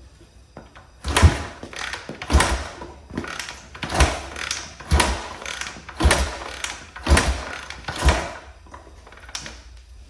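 Honda XR500 single-cylinder four-stroke being kicked over eight times, about once a second, each stroke a thud and a rush of noise. It runs on a little gas poured into the cylinder with no carburetor fitted, and it does not catch.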